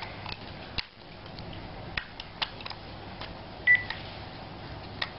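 Small plastic clicks and taps from handling a Panasonic cordless phone handset as its AA cells are fitted. One short, high electronic beep comes from the handset about two thirds of the way through.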